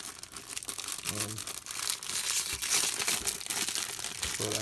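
Clear plastic bag crinkling and crumpling as it is worked off a cardboard figure box by hand, busier and louder from about halfway through. A brief vocal sound comes about a second in and again at the very end.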